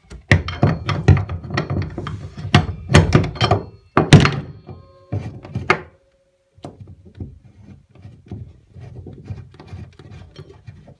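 Knocks and rubbing as a bathtub drain flange is turned by hand into the tub's drain, the hand bumping the tub: a busy run of loud thunks in the first half, then quieter scraping and tapping.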